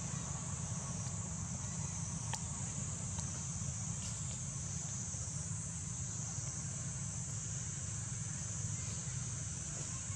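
Steady outdoor insect chorus, a high even drone that does not let up, over a low steady rumble, with a few faint clicks.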